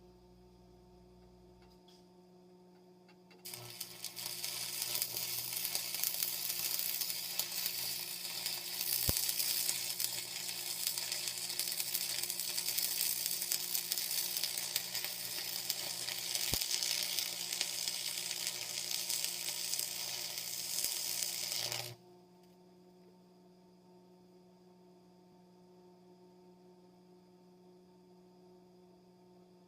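Stick-welding arc from a Lincoln AC-225 AC buzz box: a steady crackling sizzle that strikes about three seconds in and cuts off suddenly some eighteen seconds later. A faint steady hum runs underneath before and after it.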